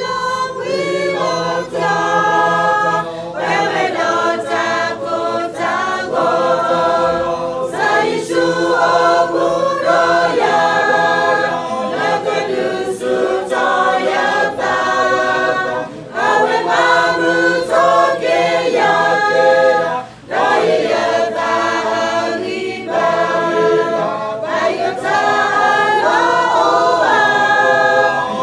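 Small church choir of women and men singing together, with no instruments heard, in long phrases with brief breaks between them.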